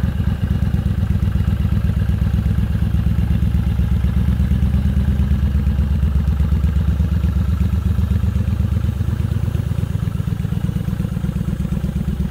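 Yamaha XVS 950 Midnight Star's air-cooled V-twin idling steadily, a rapid, even pulse.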